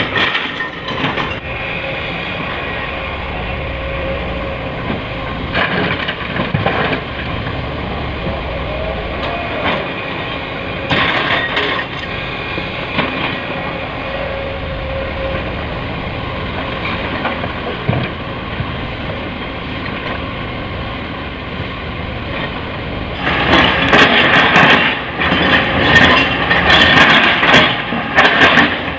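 Heavy diesel machinery running steadily at a construction site, with occasional knocks. About 23 seconds in, a much louder spell of clattering and knocking begins, typical of an excavator bucket dropping rock into a steel dump-truck bed.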